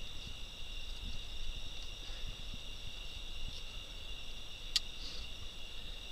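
A chorus of crickets and other night insects trilling steadily on several high pitches, with one sharp click a little under five seconds in.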